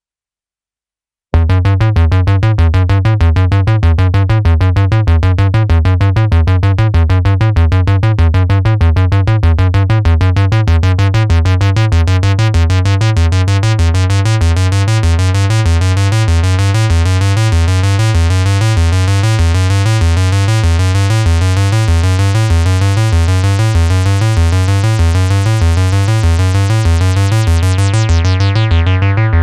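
Behringer Model 15 analog synthesizer playing a fast repeating sequence of notes with a strong pulsing bass, starting abruptly about a second in. The sound is bright and buzzy, and near the end the filter sweeps closed so the treble falls away.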